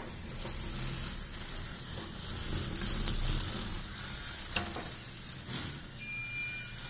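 Rustling and a steady hiss as the robot car is handled, with a sharp click about four and a half seconds in. Near the end the car's electronic buzzer starts a steady, high-pitched beep, its warning signal.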